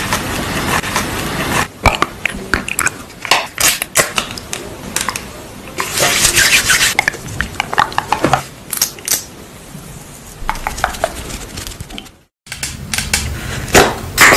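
Close-miked ASMR sounds: a sheet mask crinkling as it is peeled, and a run of sharp clicks and taps from long acrylic nails on the face, with bursts of crinkly rustling.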